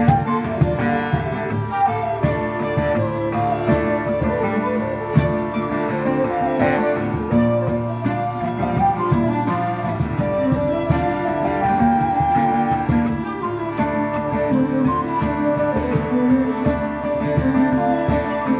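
A small band playing instrumental music live: plucked strings under a gliding melody line, with light, quick percussion clicks.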